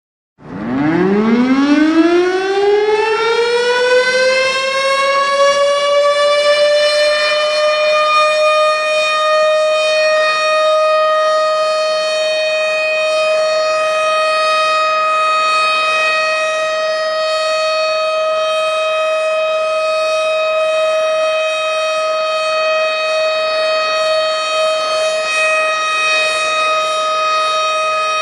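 Tornado warning siren winding up, its pitch rising from low to high over the first eight seconds or so, then holding one steady tone.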